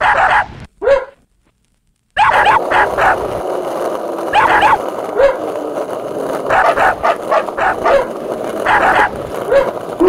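A dog barking: two barks, about a second of silence, then a run of irregular barks over a steady background noise.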